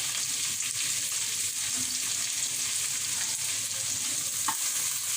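Chopped onion, green chilli and shredded potato sizzling steadily in hot oil in a pan, with one faint tick about four and a half seconds in.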